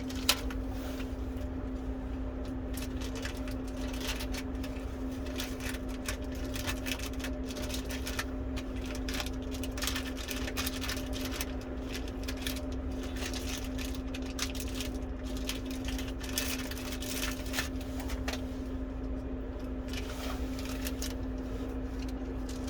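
Steady low hum with faint, scattered clicks and light rattles of small tools and screws being handled on a workbench.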